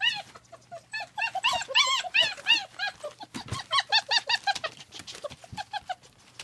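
German Shepherd puppies whining and yelping: many short, high-pitched cries in quick succession, several overlapping, coming in bursts.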